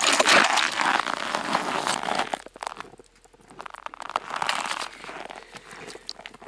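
Snow and ice crunching and crackling at a fishing hole in the ice, dense for the first two seconds or so, then scattered crunches and clicks with a short louder spell about four seconds in.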